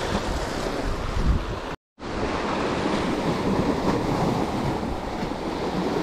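Sea waves washing on the shore, with wind buffeting the microphone. The sound drops out completely for a moment about two seconds in.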